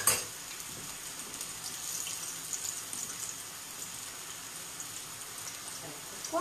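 A soffritto of garlic, chilli and onion frying gently in olive oil in a pan: a steady soft sizzle with light crackles. A single sharp clack right at the start.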